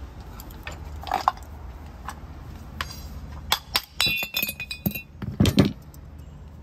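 Metal parts of a Hitachi starter motor clinking and knocking as the motor is taken apart by hand: scattered sharp clinks, a short metallic ringing about four seconds in, and two louder knocks near the end.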